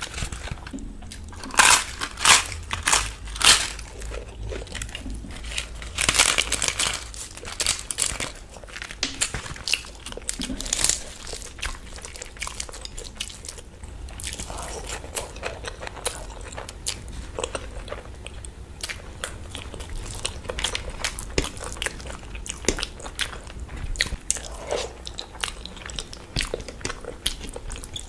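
Eating sounds: crunching and chewing of mouthfuls, with fingers mixing and scooping food on a steel plate. The loudest crunches come in clusters about two and six seconds in.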